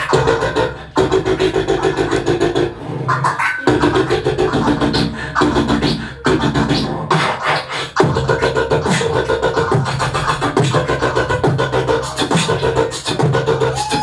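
Hip hop music with no vocals: a steady rhythmic beat with short, cut-up sounds layered over it.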